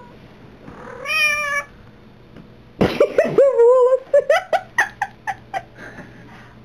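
Black-and-white tomcat in mating season meowing and yowling: a drawn-out meow about a second in, then a louder, longer yowl about three seconds in, followed by a quick run of short sharp sounds.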